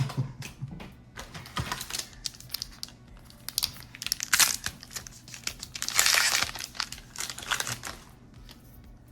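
Wrapper of a Dragon Ball Super Fusion World booster pack crinkling and tearing as it is opened, in irregular bursts of crackling, loudest about four and six seconds in.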